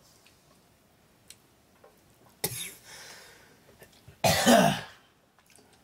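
A person coughing twice: a short cough about two and a half seconds in, then a louder, longer cough just past four seconds.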